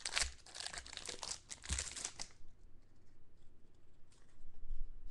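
Foil wrapper of a trading-card pack crinkling and tearing as it is pulled open, busiest for the first two seconds. It then gives way to faint rustling and light ticks as the cards are handled.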